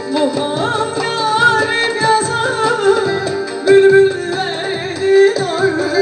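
A woman singing a Turkish folk song into a microphone with ornamented, gliding phrases, backed by a live band of bağlama and keyboard.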